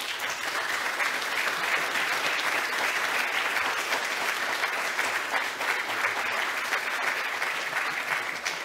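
Audience applauding, the clapping easing slightly near the end.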